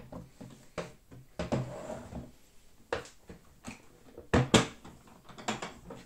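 Hard plastic clicks and knocks from a Milwaukee Packout tool case being handled and its latches being worked, with two loud snaps in quick succession about four and a half seconds in.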